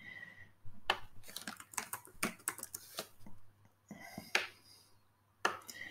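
Computer keyboard being typed on: a scattering of separate key clicks through the first few seconds, then a couple more near the end, as a short command is entered to clear the terminal.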